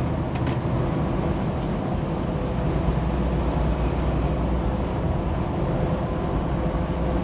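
Steady drone of a semi truck driving on the highway, heard inside the cab: engine and road noise.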